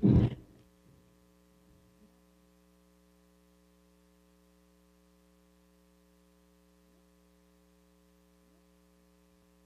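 Faint, steady electrical mains hum, a low buzz made of several steady tones.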